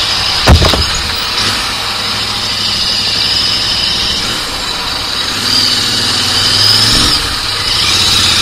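Royal Enfield Interceptor 650's parallel-twin engine running steadily at low speed in crawling street traffic. A single sharp thump comes about half a second in, and the engine sound swells briefly about six seconds in.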